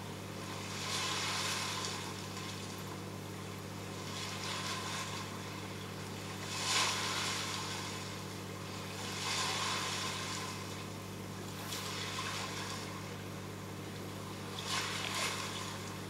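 Steady electrical hum of a reef aquarium's pumps, with a rushing hiss of moving water that swells and fades every two to three seconds.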